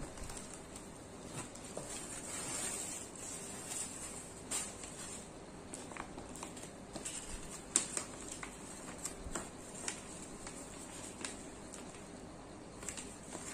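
Plastic poly mailers and a yellow kraft bubble mailer being handled on a wooden table: scattered rustling and crinkling of the packaging with light taps, the sharpest tap nearly eight seconds in.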